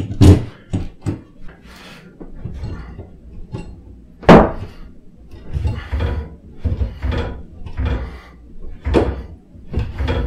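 A screw being driven by hand with a long screwdriver into a wall-mounted backdrop-roller bracket: irregular knocks and scraping strokes, with a sharp knock near the start and another about four seconds in, then a quicker run of strokes as the screw goes in.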